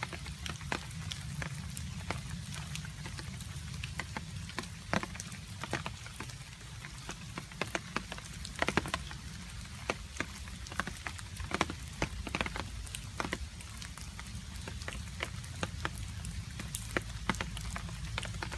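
Rain with water drops falling and dripping onto a surface: many irregular, separate sharp drips over a steady low rumble.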